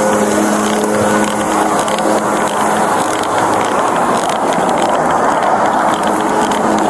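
Road traffic: an engine hum holds steady for the first few seconds, then a passing car's rushing noise swells and fades around the middle.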